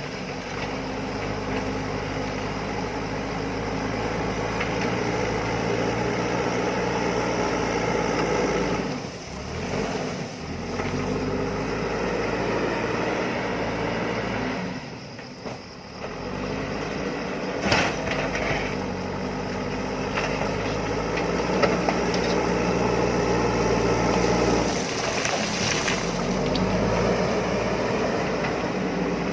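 JCB backhoe loader's diesel engine running under working load, its pitch rising and falling as the machine digs. The engine note dips briefly three times, and there is one sharp knock partway through.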